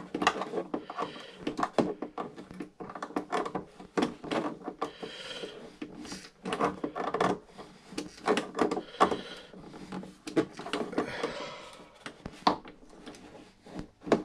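Irregular small clicks, taps and scrapes of two hand drivers working on the collet at the motor's drive shaft inside a plastic RC boat hull, as the collet is tightened.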